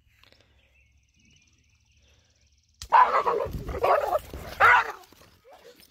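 Near silence, then about halfway through a dog barks loudly about three times in quick succession.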